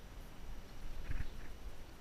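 Small waves lapping and slapping against the hull of a drifting jet ski in uneven knocks, with one louder splash about a second in.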